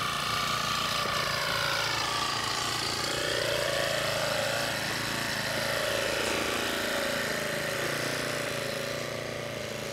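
Small gasoline engine of a portable post driver running steadily, its pitch wavering slightly, easing off a little near the end.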